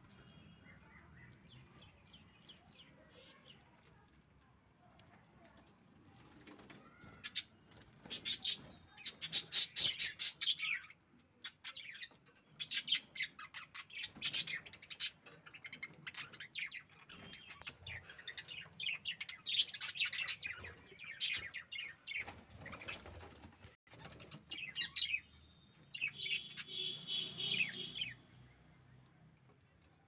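Budgerigars chirping and chattering in quick runs of high notes. The chatter starts several seconds in and comes in stretches with short pauses.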